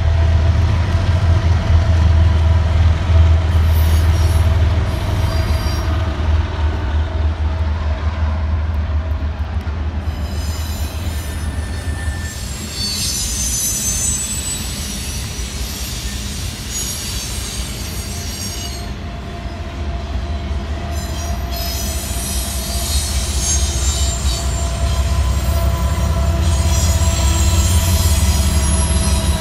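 BNSF intermodal freight train passing: the diesel locomotives' engines rumble at first, then double-stack container cars roll by with long stretches of high-pitched wheel squeal. A deep engine rumble builds again near the end as more locomotives come by.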